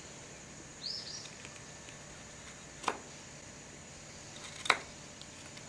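Two sharp clicks about two seconds apart as a knife makes shear cuts trimming a wooden tenon. One short bird chirp sounds about a second in, over a faint steady background.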